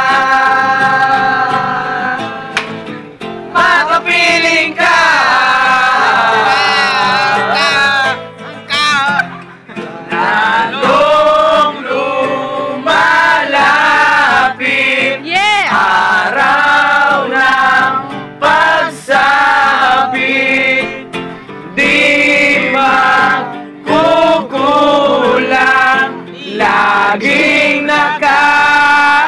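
Young men singing a Tagalog love song together over a strummed acoustic guitar.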